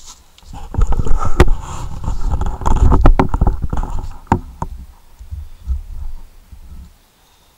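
Handling noise on the camera's microphone as the camera is moved and reframed: a low rumble with a rapid string of knocks and clicks. It starts about half a second in, eases off after about five seconds and stops near the end.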